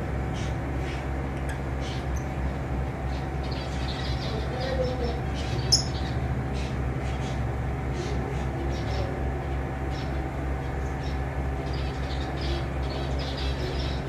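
Fischer's lovebirds chirping in many short, high calls over a steady low hum, with one sharp click about halfway through.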